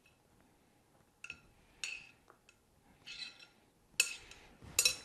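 Glass mixing bowl clinking and scraping as a grated-carrot and mayonnaise filling is scooped out of it onto a sandwich. There are about five short ringing clinks, the loudest about four seconds in.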